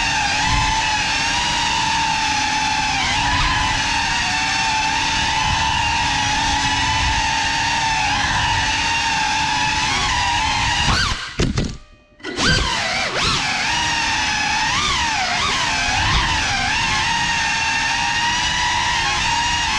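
Propeller whine from a GEPRC CineLog35 cinewhoop's brushless motors and ducted propellers, its pitch rising and falling with the throttle. About eleven seconds in, the whine cuts out for about a second, then comes back.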